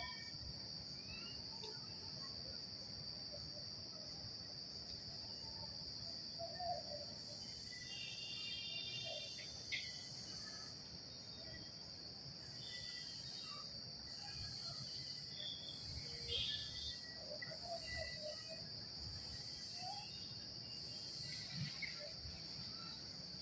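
Steady high-pitched insect chorus, an unbroken buzz, with a few short chirps here and there.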